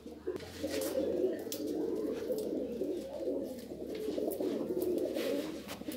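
Domestic pigeons cooing continuously, several birds overlapping in a low warbling murmur, with a few light clicks.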